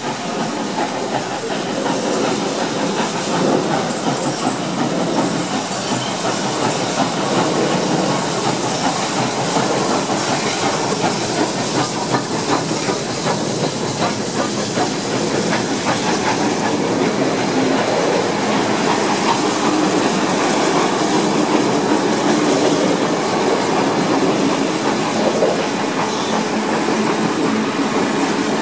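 Steam-hauled passenger train passing close: C36-class steam locomotive 3642 goes by first, then a long rake of heritage carriages rolls past with a steady clickety-clack of wheels over the rail joints.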